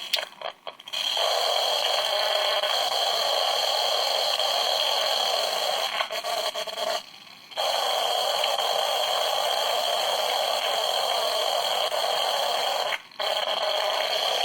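An 802.11n WiFi signal made audible as interference: a dense, steady buzzing static with a bright high band. It sputters on and off for the first second, then runs steadily, cutting out for about half a second around seven seconds in and briefly again near the end.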